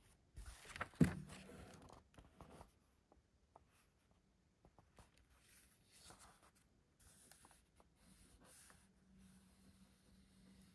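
Rustling and scraping handling sounds, likely the vacuum sealer and its plastic bags being handled, with a sharp knock about a second in. A faint low hum shows near the end.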